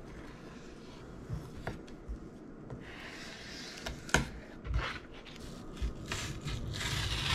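Chef's knife slicing and scraping along a raw fish fillet on a plastic cutting board, with a few light knocks of the blade and hand on the board.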